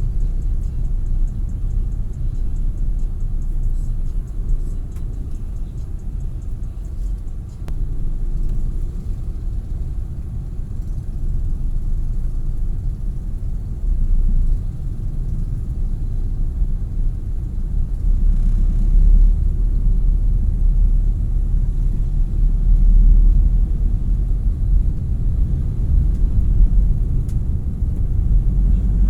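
Low, steady rumble of a moving vehicle, its loudness swelling and easing off again and again.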